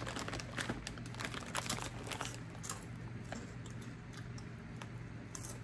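Crunchy Funyuns onion-flavoured corn snack rings being chewed: a run of crisp crunching crackles, thick at first and thinning out after a couple of seconds, over a low steady hum.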